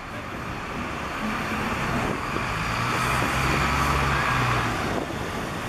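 Street traffic: vehicle engines running close by, with a low engine hum over a steady hiss. The hum builds about two seconds in and eases near the end.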